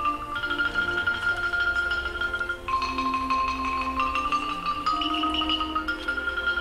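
Marimbas played with a string orchestra: the marimbas strike rapid repeated notes on each pitch, moving to a new note about once a second, over held strings and bass.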